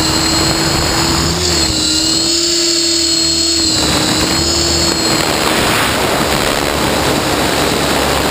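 Align T-REX 600E PRO electric RC helicopter in flight, heard from a camera on its frame: a steady high motor and gear whine over the rotor noise, wobbling slightly in pitch as it flips and rolls. About five seconds in, the lower whine fades and a broad rush of air takes over.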